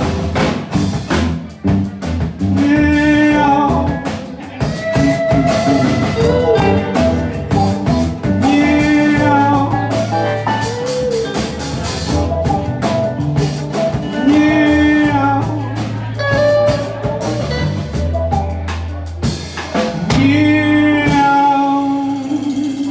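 Live blues-soul band playing an instrumental stretch: electric guitars, bass, keyboard and drum kit, with a trombone playing recurring sliding phrases about every six seconds over the groove.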